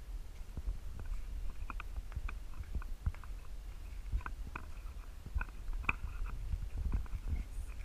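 Handling noise from a hand-held camera: rubbing, small clicks and knocks over a steady low rumble, with a few short high chirping notes scattered through.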